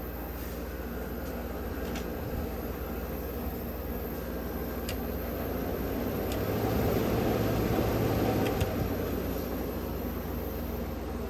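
1984 GE Quiet Air window air conditioner running on low cool: its fan blows steadily over a motor hum. It swells louder for a couple of seconds past the middle, with a few faint ticks.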